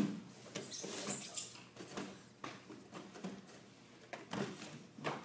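Bo staff form on dojo mats: the wooden staff swishing through the air, bare feet stepping and sliding on the mats, and several sudden thumps.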